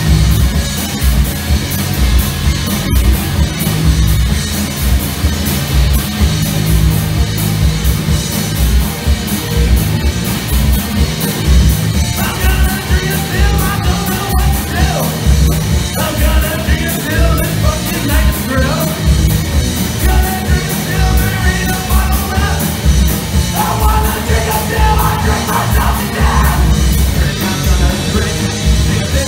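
Live three-piece rock band playing loudly: distorted electric guitar, bass guitar and a drum kit in a heavy, punk-metal style. A vocal comes in about twelve seconds in, with another sung line near the end.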